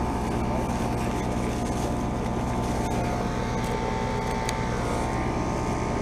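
Carrier Comfort heat pump outdoor unit running steadily in its defrost cycle: a constant machine hum with a few steady tones.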